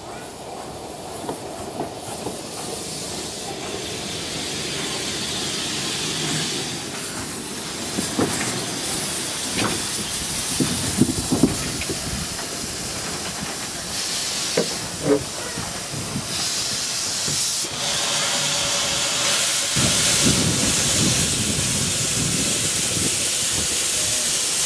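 Saddle-tank steam locomotive No. 14 Charwelton moving slowly past close by. Steam hisses and grows steadily louder as it draws near, with a few metallic knocks.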